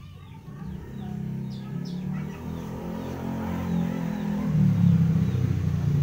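A motor vehicle engine running and growing steadily louder as it approaches, with a few short bird chirps in the background.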